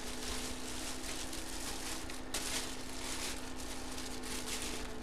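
Faint rustling and crinkling of a clear plastic bag around a football helmet as it is handled, over a steady electrical hum and hiss.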